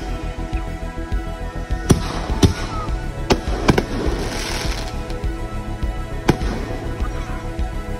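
Consumer aerial fireworks bursting: five sharp bangs, with a crackling hiss of sparkle after the bursts in the middle, over steady background music.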